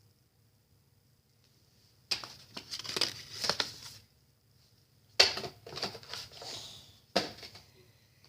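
Packaging crinkling and crackling as it is handled, in three bursts after a couple of seconds of quiet.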